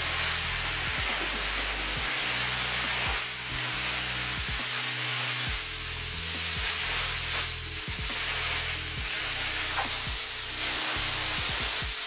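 Pressure-washer lance spraying water onto a soapy rug and tiled floor: a steady hissing spray that swells and eases a little as the lance is swept, with background music underneath.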